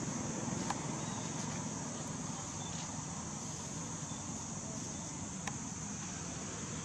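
Steady outdoor ambience: a constant high insect drone over a low rumble, with a few faint clicks.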